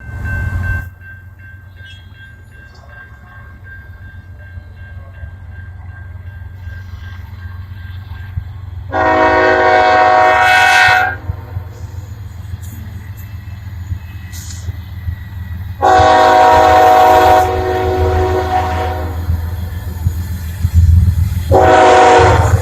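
Diesel freight locomotive approaching, its engines rumbling louder and louder, while its air horn sounds two long blasts and then a short one, the opening of a grade-crossing warning.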